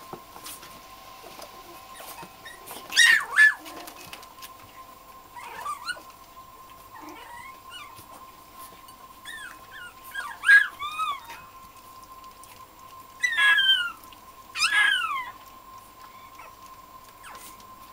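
Black and tan Griffon puppies, five weeks old, giving short high-pitched yips and squeals in scattered bursts while they play, the loudest near the end.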